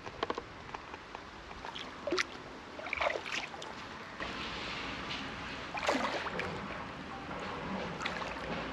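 Water sloshing and small splashes as a caught black bass is lowered by hand into the water and released.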